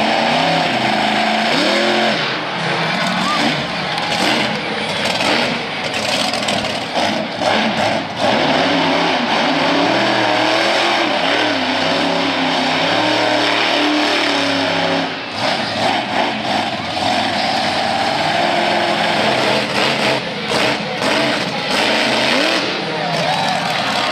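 Monster truck engine running loud, revving up and easing off again and again as the truck spins donuts in the dirt. There is a short drop in the engine about fifteen seconds in, then it picks up again.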